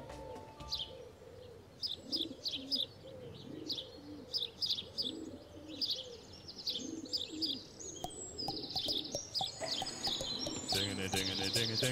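Birds calling: quick high chirps in short runs over low, repeated cooing calls. Near the end, steady sustained musical tones come in underneath.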